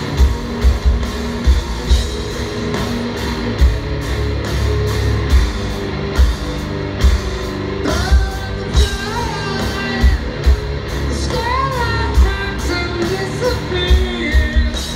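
Live rock band playing a slow, heavy song: electric guitar and drums on a slow, pounding beat, with a male lead vocal coming in about eight seconds in.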